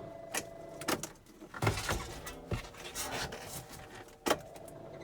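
A few separate clicks and knocks from handling the controls in the cab of an old tractor that is being readied for a cold start, ending with a sharp, loud click about four seconds in, after which a steady hum comes back on.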